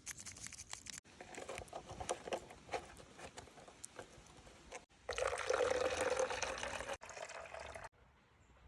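Liquid being poured and splashing, in several short edited pieces with small clicks and knocks, loudest for about two seconds just past the middle.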